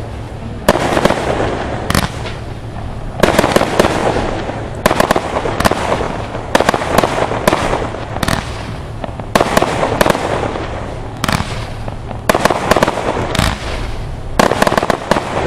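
Pyrotrade Taifun multi-shot fireworks battery firing shot after shot, about one a second, each a sharp report followed by a short crackling rush of noise.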